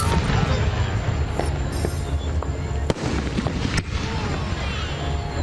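Aerial fireworks display going off: a dense, continuous rumble of booms with sharp cracks standing out now and then.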